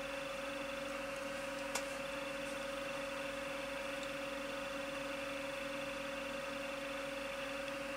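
Steady electrical background hum, a constant low tone over faint hiss, with one small click just under two seconds in.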